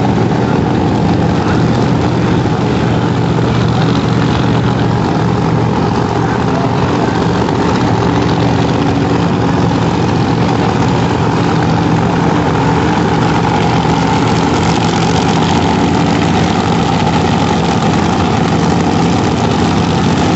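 Funny car drag-racing V8 engine idling loudly and steadily, a deep even rumble with no revving.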